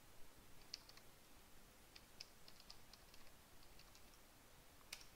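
Faint computer keyboard typing: a scattered run of light keystrokes, with one sharper keystroke near the end.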